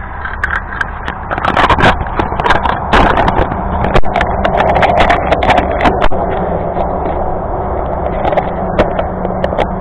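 Small radio-controlled truck driving over loose riprap rocks: its motor runs steadily while the wheels and body knock and clatter against the stones, with a dense run of sharp knocks in the first half.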